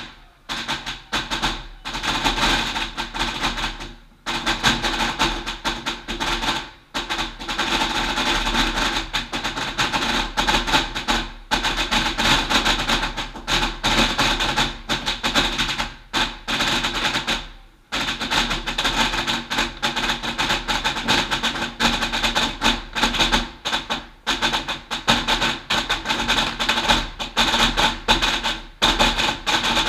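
A string of a thousand firecrackers (duizendknaller) going off in rapid, continuous crackling bangs, with a few brief breaks.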